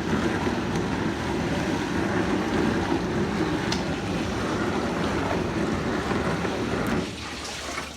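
Whirlpool dishwasher running: a steady rush of water and motor noise that drops away sharply about seven seconds in.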